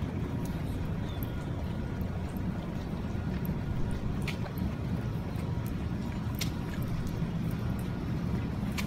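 Steady low outdoor rumble with a few scattered light clicks and taps.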